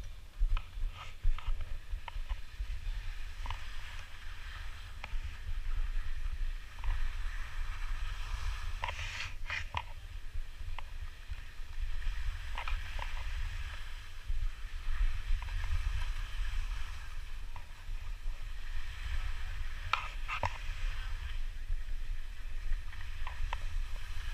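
Skis hissing and scraping over packed snow on a downhill run, with wind buffeting the action camera's microphone as a steady low rumble. Sharper edge scrapes come about nine seconds in and again near twenty seconds.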